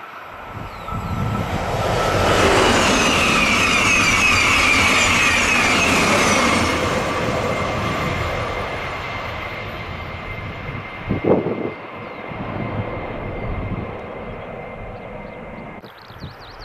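TGV Duplex high-speed train passing at speed: a rush of air and wheel noise swells in about two seconds, holds loud for several seconds with a fast rhythmic clatter of the passing cars, then fades slowly as it goes away. There is a short sharp knock about eleven seconds in.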